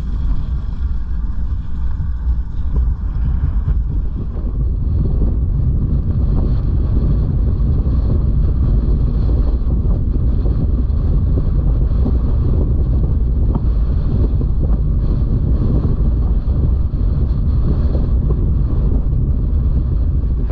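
Strong wind buffeting the microphone: a loud, steady low rumble with constant flutter.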